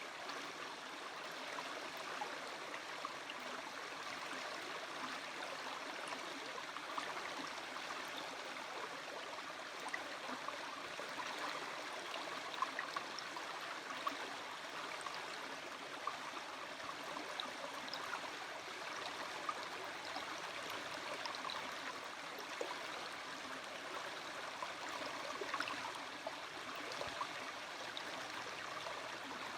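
Stream water running steadily, with occasional small splashes.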